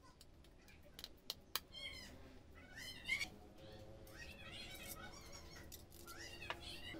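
Faint animal calls: several short cries that rise and fall, spread through the few seconds, with a few sharp clicks in the first couple of seconds.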